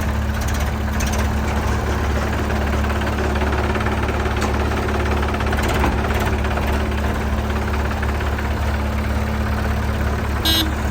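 Heavy diesel engine running steadily with a deep, even hum. Near the end a short high-pitched tone sounds briefly.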